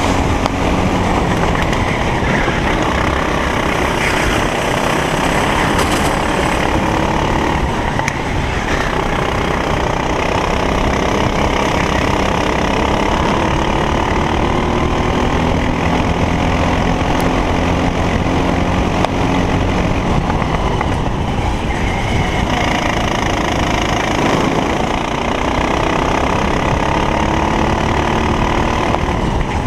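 Racing kart engine at full throttle, its pitch climbing steadily as it pulls along the straights and falling back at about 8 seconds and again at about 22 to 25 seconds as the kart slows for corners.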